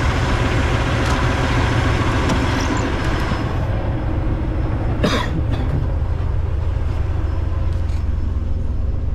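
Semi truck's Cummins diesel engine running with a steady low rumble. A hiss fades out about three and a half seconds in, and a short sharp burst of noise comes about five seconds in.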